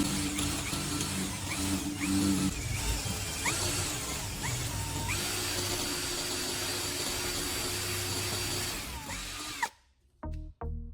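Electric drill running steadily with a grinding whir, its pitch shifting a couple of times, over background music; it cuts off suddenly near the end.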